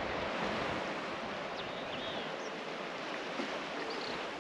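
Steady wind and water noise over calm sea, with a few short, faint, high chirps from small birds.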